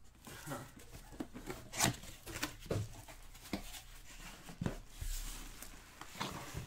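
Hands handling a cardboard helmet box: turning it over, opening its flaps and handling the cloth bag inside, giving irregular cardboard knocks, scrapes and rustles.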